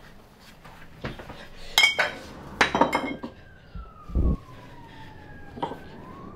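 Sharp clinks with a brief ringing tone, loudest about two and three seconds in, then a distant siren wailing, its pitch slowly falling and then rising again near the end. There is a dull low thump about four seconds in.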